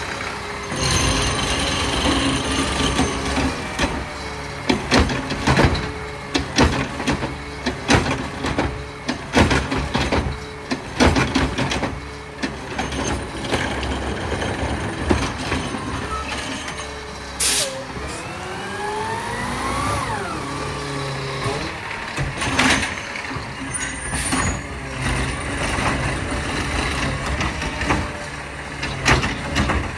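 Peterbilt 520 garbage truck running while its ZR automated side-loader arm grabs, lifts and dumps a curbside cart: repeated clanks and knocks of the arm and cart, a hydraulic whine that rises and falls about two-thirds of the way through, and an air-brake hiss.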